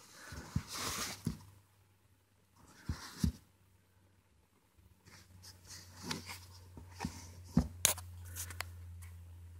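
Handling noise: short rustling scrapes about half a second and three seconds in, then scattered sharp clicks and knocks, over a low steady hum that sets in about halfway through.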